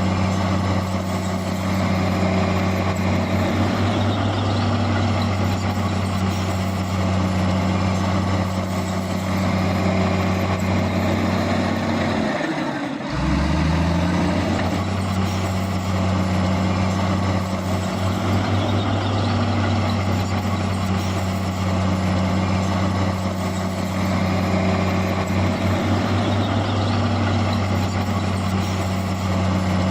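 Heavy diesel engine of earthmoving machinery running steadily under load. About halfway through the engine speed drops sharply and then climbs back up.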